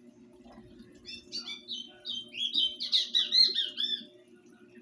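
A bird calling, a quick run of chirping and squawking notes that glide up and down, lasting about three seconds.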